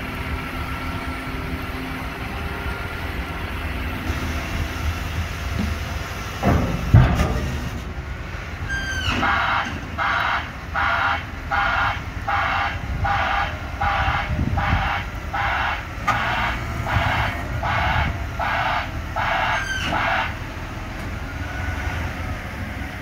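Caterpillar 725C articulated dump truck's diesel engine running, with a heavy thump about seven seconds in as the tipper body comes down onto the frame. From about nine seconds in, a reversing alarm beeps about 14 times, a little more than once a second, as the truck backs up.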